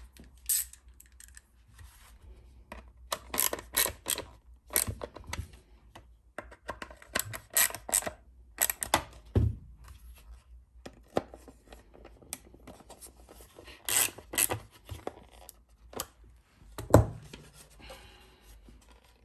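Irregular clicks, taps and scrapes of small hard plastic parts being handled and fitted by hand, with sharper knocks every so often and the loudest one near the end.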